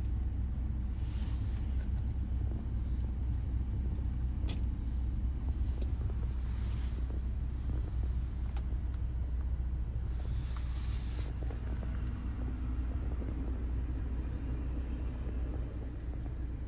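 Mercedes-AMG GLE 43's 3.0-litre biturbo V6 idling, a steady low rumble heard from inside the cabin. A few brief hissy rustles and a single click come and go over it.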